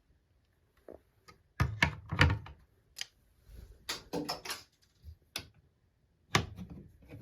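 Handling noise: irregular knocks and clatters of objects being picked up and put down. The loudest cluster comes about one and a half to two and a half seconds in.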